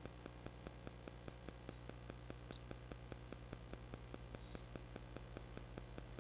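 Low electrical hum and hiss of the microphone and sound-system feed, with a fast, even ticking and a thin steady high whine, all at low level; no speech.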